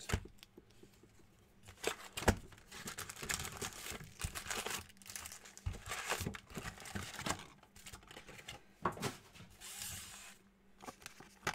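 Cardboard trading-card box being opened, with foil-wrapped card packs crinkling and rustling as they are pulled out and stacked.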